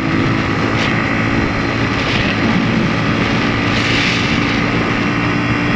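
Motorcycle engine running at a steady cruising speed with heavy wind noise on the microphone, which swells briefly about four seconds in.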